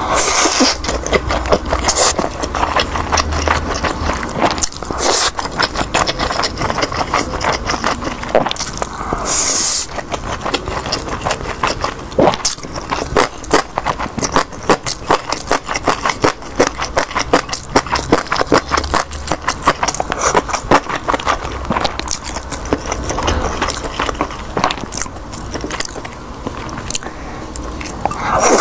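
Close-miked eating: chewing and biting food, with a dense run of rapid wet, crackly clicks and occasional louder knocks.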